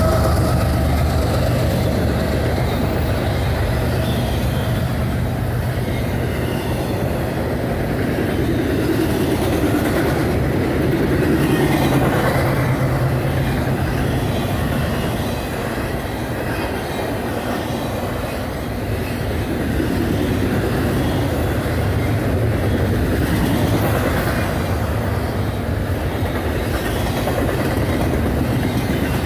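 Double-stack intermodal freight well cars rolling past: a steady rumble with wheels clicking over rail joints. A low diesel drone from the mid-train GE ES44AH locomotive, just gone by, fades over roughly the first dozen seconds.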